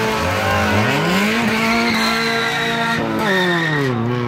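Car engine revving hard as a car pulls away. The pitch climbs about a second in, holds, then drops near the end.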